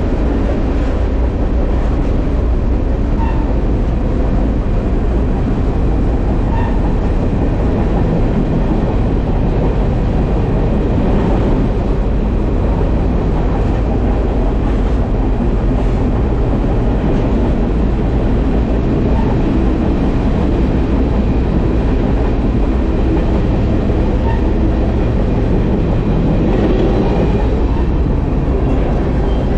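Freight train rolling along the rails: a steady, loud, low rumble that goes on without let-up.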